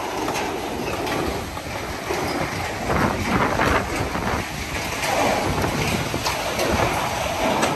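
Wind blowing across the microphone, a rough rumbling noise that swells and falls in gusts.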